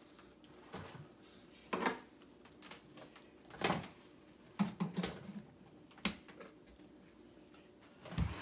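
Scattered soft knocks and clicks, a few seconds apart, of a child handling the power cord and plug of an airblown yard inflatable, with a low thump near the end.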